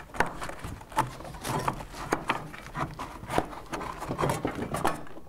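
Gloved hands working a rubber drive belt off a Yamaha snowmobile's secondary clutch sheave: the belt rubs and scrapes on the aluminium sheave, with a series of sharp clicks and knocks.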